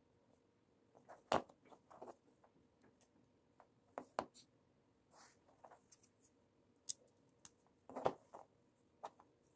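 Small plastic LEGO pieces clicking as they are handled and pressed together, a few sharp clicks standing out about a second in, about four seconds in and about eight seconds in, with lighter ticks and rustling between.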